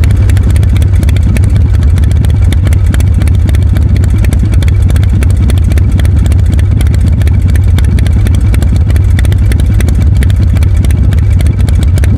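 Motor scooter engine idling steadily and loudly, close up, with an even low pulsing from its firing strokes.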